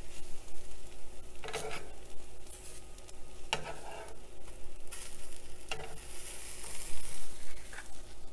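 Metal spatula scraping under and folding a sprouts dosa on a hot nonstick tawa: several separate scrapes over a light sizzle from the pan.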